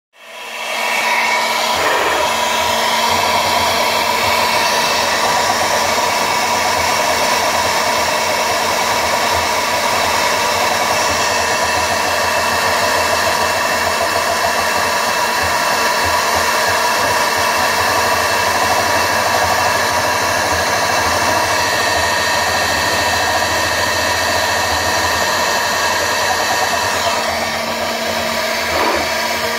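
High-speed CNC router spindle running steadily while a small cutter engraves a shallow logo into aluminium plate: a continuous whir with cutting noise, easing slightly near the end.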